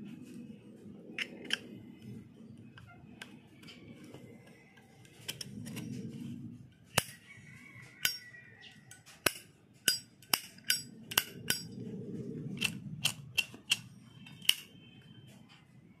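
Chrome-plated brass 1964 Zippo windproof lighter being handled: its lid and insert make a string of sharp metallic clicks and clinks, each with a brief ring. There are about a dozen of them in the second half, over a low rubbing of fingers on the case.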